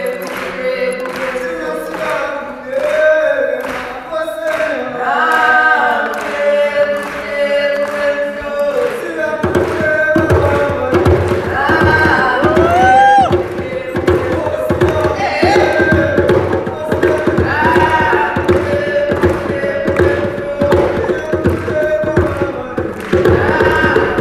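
Live group singing of a traditional African song over a steady, sharp beat. About nine seconds in, hand drums come in with deep, rapid strokes under the voices and carry on to the end.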